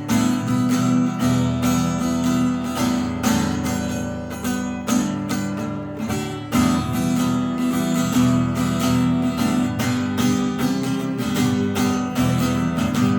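Acoustic guitar strummed in a steady rhythm, playing chords as an instrumental introduction to a gospel song.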